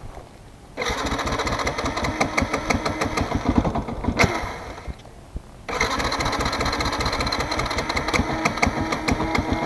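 Fantic Performance 125 motard's single-cylinder four-stroke engine starting about a second in and running, then rising briefly and dying out about four seconds later; it starts again near the six-second mark and keeps running. The engine dying is an unwanted stall, which the rider takes for a fault in the bike.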